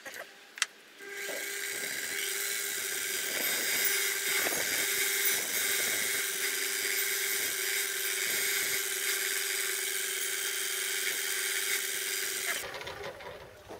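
Small metal lathe switched on with a click, then its spindle running steadily with a motor hum and a high whine, turning a cast aluminium pillow block in the chuck. It is switched off and spins down near the end.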